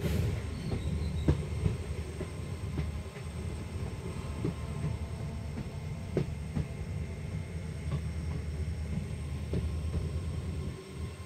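Passenger train coach running on the track, heard at an open coach door: a steady low rumble of wheels on rail with scattered sharp knocks, falling away a little near the end.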